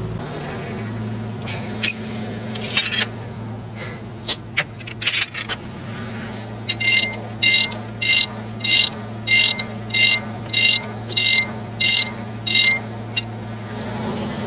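Tractor engine running steadily, with a few metallic clinks and then about ten evenly spaced high-pitched chirps, roughly two a second.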